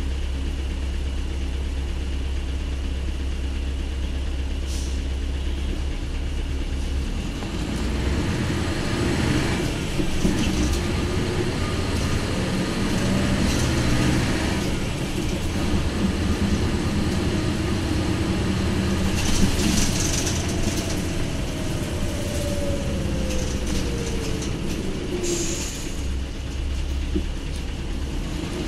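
Isuzu Cubic KC-LV280L city bus's V8 diesel heard from inside the cabin, running steadily low for several seconds, then working harder as the bus pulls away. A whine rises and falls through the middle, and there are a few short hisses of air.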